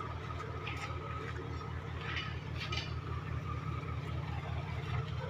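Lorry engine idling steadily at a low pitch, with a few faint light clicks.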